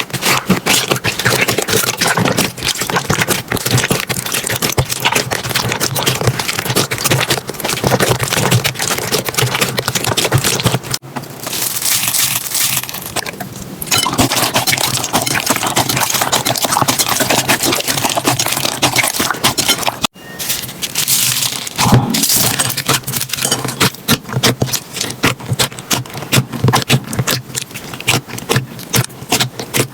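Slime being squeezed and pressed by hand, a dense run of small crackles, pops and clicks. The texture changes abruptly twice, about 11 and 20 seconds in.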